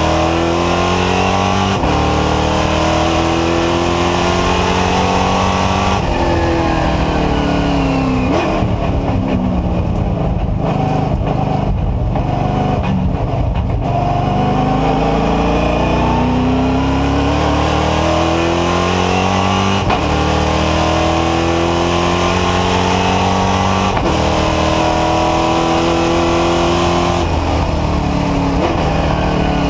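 V8 engine of a NASCAR Whelen Euro Series stock car heard from inside the cockpit, pulling hard and rising in pitch with upshifts. About a quarter of the way in it backs off and winds down through the gears for a corner, then accelerates out again with further upshifts and eases off near the end.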